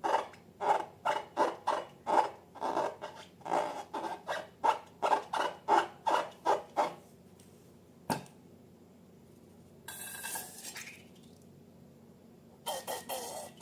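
Slime-making handling sounds: a run of short, evenly repeated strokes, about two or three a second, that stops about seven seconds in. Then comes a single sharp click, and later brief scraping rustles.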